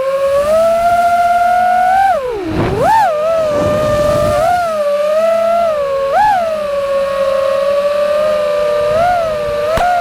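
FPV freestyle quadcopter's brushless motors whining, the pitch following the throttle: a deep drop about two and a half seconds in, with a rush of noise as it pulls back up, then quick upward blips around six and nine seconds in.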